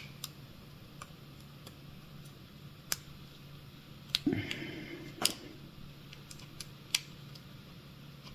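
Scattered small clicks and taps of tools and parts being handled on an opened Nintendo Switch, with a brief scraping shuffle and a soft knock about four seconds in, as the battery connector is lined up for fitting. A faint steady hum lies underneath.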